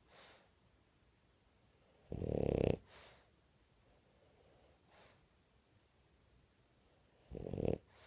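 French bulldog snoring while awake: two loud snoring breaths in, about two seconds in and again near the end. Each is followed by a soft, hissing breath out.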